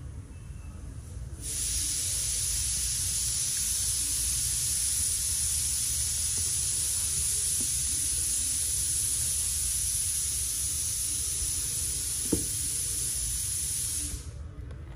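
A steady, even hiss that starts abruptly about a second and a half in and cuts off sharply near the end, over a low rumble.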